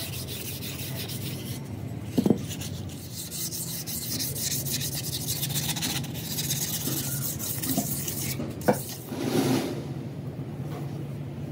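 Steady rasping and rubbing on metal over a low steady machine hum, with two sharp knocks, about two seconds in and near nine seconds.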